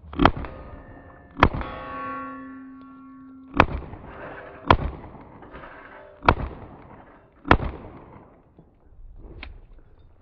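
Six slowed-down pistol shots, each a sharp crack with a drawn-out tail, spaced about one to two seconds apart. After the second shot a ringing tone made of several pitches fades away over about two seconds.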